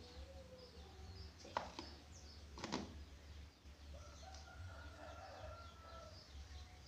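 Faint background calls of chickens, with a rooster crowing, and small birds chirping. Two sharp knocks sound about a second apart, a little way in.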